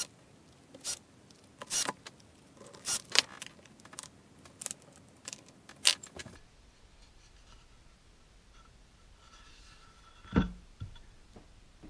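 Small hard parts clicking and clinking as bumper feet and loose metal pieces are handled on a wooden cutting board, a run of sharp irregular clicks for about six seconds. Then a pause and one dull thump of wood on the workbench.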